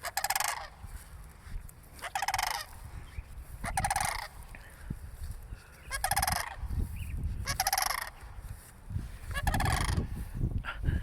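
Cranes calling over and over: rolling, rattling calls about half a second long, one every one and a half to two seconds.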